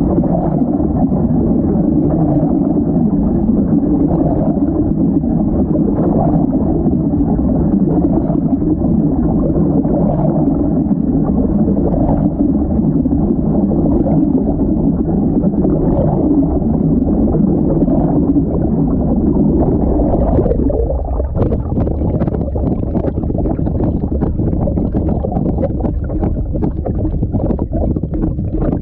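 Washing machine running with water sloshing, heard muffled from inside the drum. About two-thirds of the way through the churning changes, and short knocks and clicks become more frequent.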